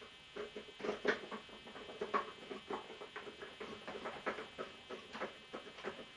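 Light clicks and taps of hand tools working at the bolts and fasteners of a motorcycle's fairing panels, several a second and uneven.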